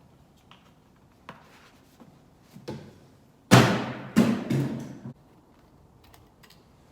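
Handling knocks: a few light clicks, then two louder clattering thunks about three and a half and four seconds in.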